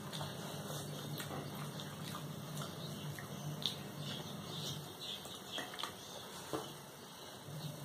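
Wet, sticky sounds of rice being squished together with curry by hand and chewed, with scattered small clicks. Under them a steady low hum stops for a couple of seconds about five seconds in.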